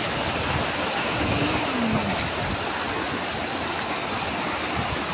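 Waterfall rushing steadily into its plunge pool: a dense, even sound of falling water with no change in level.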